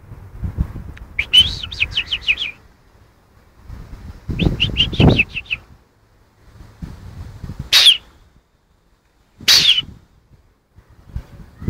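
A bird chirping in two quick runs of about seven high notes each, then two single high calls falling in pitch. Under the chirps are bursts of low rumbling noise.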